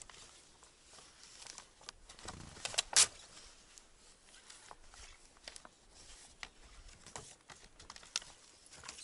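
Crinkling of a vinyl sticker's backing paper and scattered light clicks and taps as a flame decal is peeled and pressed onto a car door, with one sharp, louder click about three seconds in.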